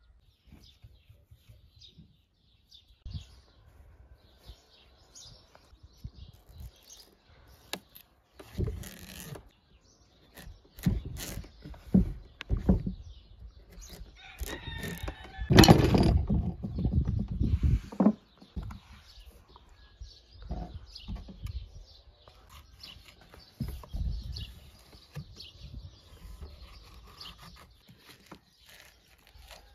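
A knife cutting through a pumpkin's hard rind and scraping out the seeds, with uneven thuds and scraping. Chickens cluck and a rooster crows in the background.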